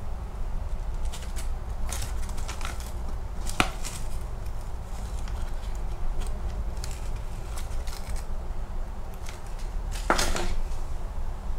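Foil-lined cardboard pot, scorched on the inside, being pulled apart and unfolded by hand: crinkling and crackling of foil and paper, with one louder crackle about three and a half seconds in and a denser rustling burst near the end as the torn pot is set down on a wooden board.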